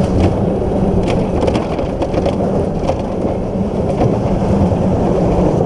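Summer toboggan sled running fast down a stainless steel trough: a loud, steady rumble with a hum underneath and scattered rattling clicks.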